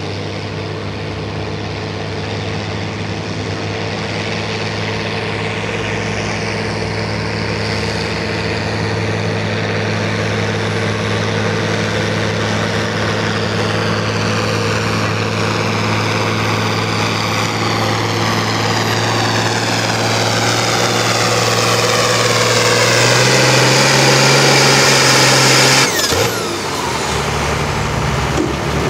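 Farm tractor's diesel engine held at full throttle under heavy load while pulling the weight sled, the steady engine note growing louder as it comes down the track. Near the end the throttle is cut and the sound drops suddenly.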